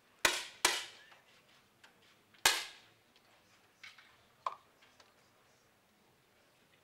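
Three 10 m air rifle shots from the firing line, each a sharp pop with a short reverberating tail: two about a third of a second apart near the start, the third about two seconds in. Two much fainter clicks follow around four seconds in.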